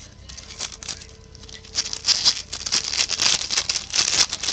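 Trading cards being handled and flipped through: rapid papery flicks and slaps, sparse at first and coming thick and fast from about two seconds in.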